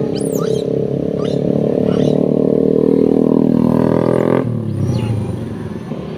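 A motor vehicle engine running close by. It builds up and then drops away suddenly about four and a half seconds in, with repeated short high chirping calls over it.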